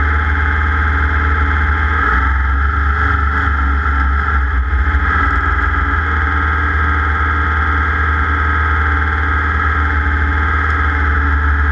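A racing vehicle's engine running steadily at speed, loud and unbroken, with a heavy low rumble.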